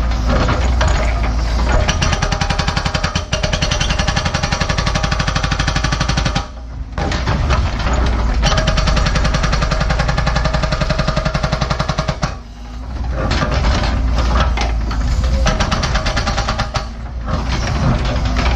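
NPK hydraulic hammer on a Cat 314E excavator pounding hard bedrock in a rapid, steady stream of blows over the excavator's engine, pausing briefly twice, about a third and about two-thirds of the way through.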